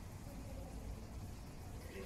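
Steady low background rumble with faint, indistinct voices in the distance.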